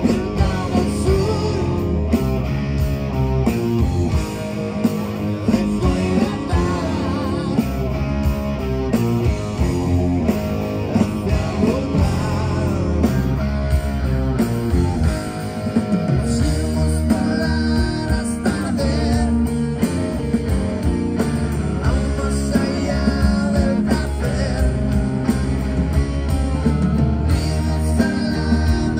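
A rock band playing live: electric guitars, bass guitar and drum kit, with a lead vocal heard in places.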